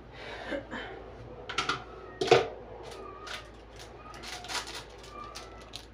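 Kitchen items being handled on a counter by the sink: an irregular run of clicks, knocks and clatter, the loudest knock about two seconds in.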